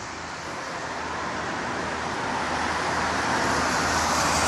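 Road vehicle on wet tarmac: tyre hiss with a low engine hum, growing steadily louder as it approaches.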